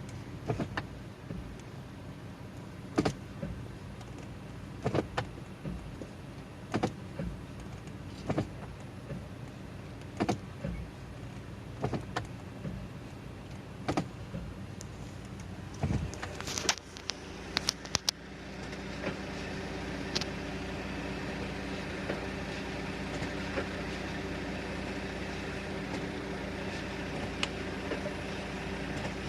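Volvo V60 running at idle, with a sharp clunk roughly every two seconds as the automatic transmission is shifted between D and R: the shift shock and abnormal noise the owner is checking. About two-thirds through comes a quick cluster of clicks, after which the running sound turns louder and steadier.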